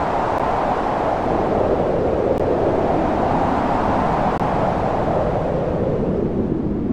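Steady rushing noise of a storm's strong wind and heavy rain, swelling and easing a little, with no thunderclap.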